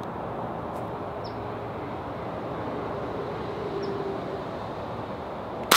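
Steady rumble of nearby freeway traffic with a few faint bird chirps, then near the end a single sharp crack of an air rifle shot.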